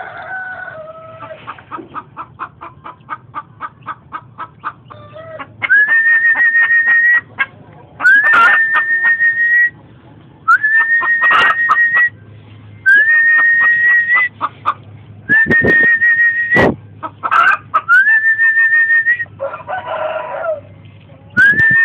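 Young Javan scops owl calling: a quick run of short pulses, then a string of long, level whistled notes, each sliding up at the start and held for a second or two, about every two and a half seconds. A few sharp knocks fall between the notes.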